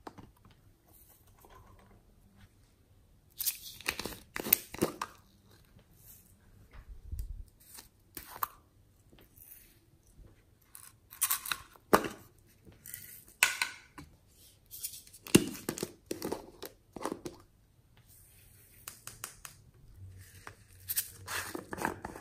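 Plastic toy containers being handled and their lids pried open: irregular short clicks and snaps with quiet gaps between.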